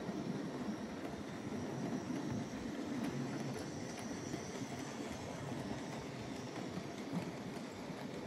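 OO-gauge Bachmann J94 saddle-tank model locomotive hauling a rake of wagons along the track, making a steady running noise from its motor and the wheels on the rails.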